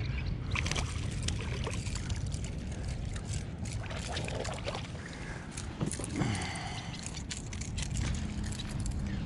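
Wind buffeting the microphone over water splashing and lapping, with scattered short clicks and knocks.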